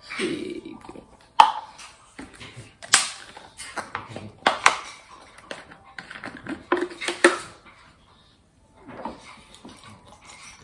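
A plastic baby bottle and a small plastic container being handled on a kitchen counter while a bottle is made up: a series of sharp knocks and clicks, about four loud ones, with handling and rustling between them.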